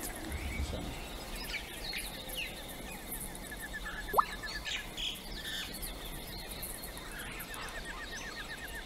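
Quiet jungle ambience of birds chirping and a rapid trill that comes and goes, with one brief rising whistle about four seconds in.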